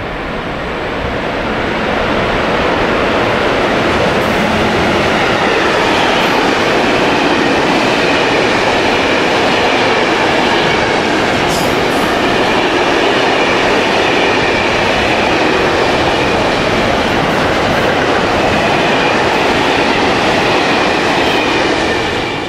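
Container freight train passing through the station at speed: a steady loud rumble and rattle of wagon wheels on the rails, with a faint high wheel squeal running over it. It builds over the first two seconds and cuts off abruptly near the end.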